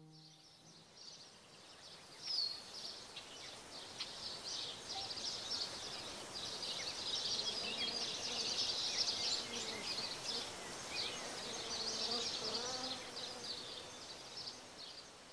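Outdoor nature ambience: a dense chorus of short high chirps that swells to its loudest in the middle and fades toward the end, with a few lower wavering tones about twelve seconds in.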